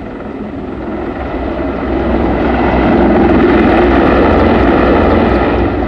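Mi-24 attack helicopter flying low past, its turbines and rotor running steadily and growing louder about two seconds in.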